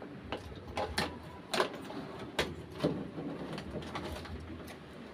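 Handling noise from hand-wiring a house electrical circuit: an insulated wire pushed through plastic boxes and raceway and worked into a wall switch, with about seven irregular, sharp clicks and scrapes of wire and plastic.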